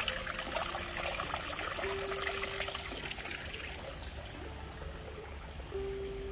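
Water trickling and splashing steadily, growing fainter after the first few seconds.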